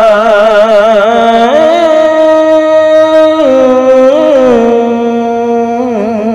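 A man chanting Vietnamese Buddhist verse into a microphone and loudspeaker, drawing one syllable out into a long melody with a wide vibrato. The held pitch steps up about one and a half seconds in, then steps back down twice in the second half.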